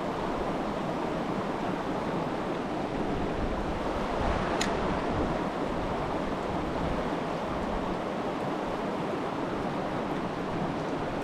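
Mountain stream rushing steadily over rocks, a constant even wash of water, with a single short click about four and a half seconds in.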